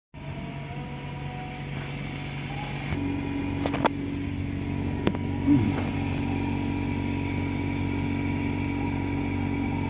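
A motor running with a steady drone that steps up a little about three seconds in, with a few light clicks near the middle.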